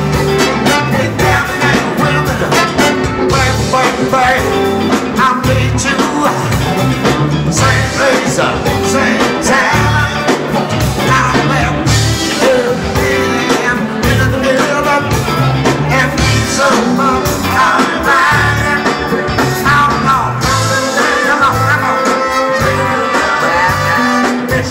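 Live funk band playing with a lead vocal: drum kit and congas, a driving repeated bass line, electric guitar, and a horn section of saxophone, trumpet and trombone.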